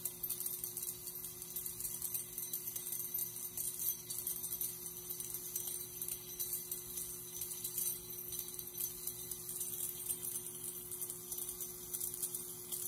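High-voltage plasma discharge in an argon-filled glass bottle, driven by a flyback transformer: a steady high-pitched hiss full of fast fine crackling, over a steady low hum.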